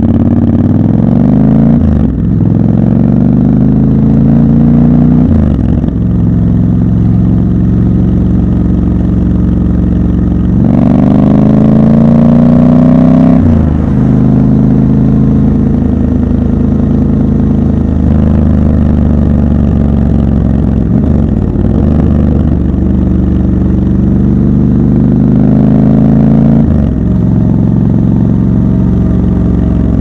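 Triumph Scrambler 1200 XC's 1200 cc parallel-twin engine running under way, heard from the rider's seat. The engine note climbs under acceleration and drops back sharply at each gear change, several times, with steadier cruising stretches between.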